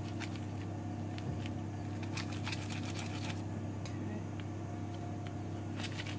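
Steady low hum, with faint scattered clicks and crackles from a pizza cutter rolling over pastry on baking paper, bunched up about two to three seconds in and again near the end.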